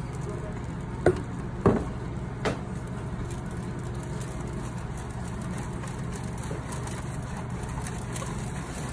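Wire whisk stirring tempura batter through a metal mesh strainer over a stainless-steel bowl, clinking sharply against the metal three times in the first few seconds. A steady low hum runs underneath.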